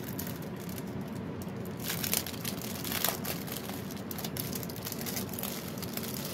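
Thin clear plastic packaging crinkling as hands handle it and pull out the label stickers, with louder rustles about two and three seconds in.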